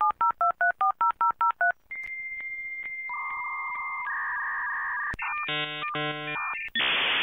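Dial-up modem connecting: a quick run of about a dozen touch-tone dialing beeps, then a steady high answer tone, a pair of held lower tones, a burst of warbling beeps, and near the end a rush of hiss as the modems settle into data.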